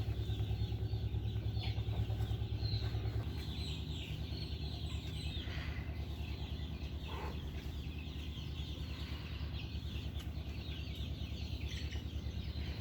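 Chickens clucking and calling, many short overlapping calls, over a steady low hum that drops a little about three seconds in.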